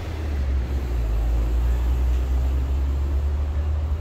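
Steady low rumble of outdoor background noise, swelling a little in the middle.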